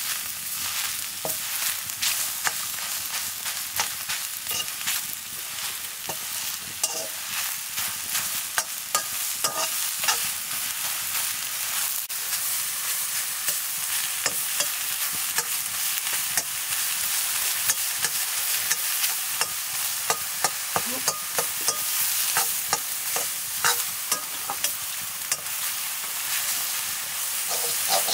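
Leafy greens sizzling in a black iron wok over a wood fire while a metal spatula stirs and scrapes them, giving a steady frying hiss dotted with frequent sharp clicks.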